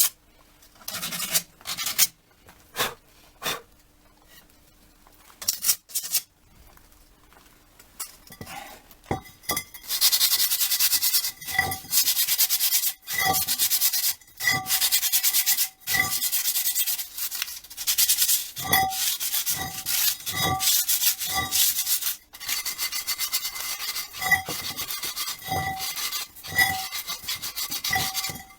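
Rear drum-brake parts being sanded by hand in repeated rasping strokes: a few scattered strokes at first, then steady back-and-forth work from about ten seconds in, with a faint ringing tone on many strokes. The sanding clears packed brake dust that stops the shoes from bearing fully on the drum.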